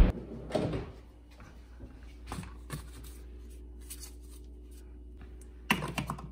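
A pull-out kitchen trash drawer sliding shut, followed by a few soft handling clicks. Near the end, a quick cluster of plastic clicks as a K-cup pod is set into a Keurig brewer's pod holder.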